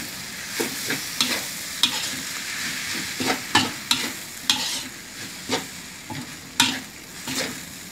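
Metal spatula scraping and knocking against a metal wok in irregular strokes while stir-frying bamboo shoots and glass noodles, over a steady sizzle.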